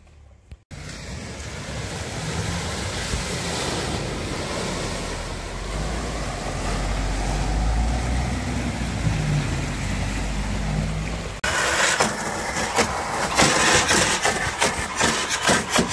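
A car driving through deep floodwater at a ford: water rushing and surging around the wheels, with a low engine rumble that swells as the car passes. About eleven seconds in it cuts off abruptly, replaced by a dense, irregular crackling spatter as a stream of water falls onto an exposed car engine.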